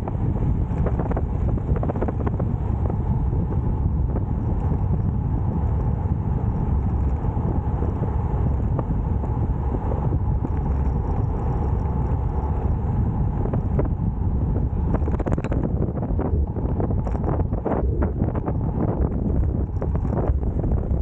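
Wind rushing over the microphone of a camera on a road bike at descent speed: a steady, heavy low rumble. A few sharp knocks and rattles come about three-quarters of the way through.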